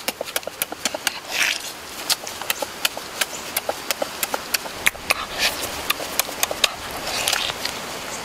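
Close-up eating sounds: a mouth chewing and smacking on cooked pig leg, an irregular run of sharp wet clicks several times a second, with a few short breathy rushes between.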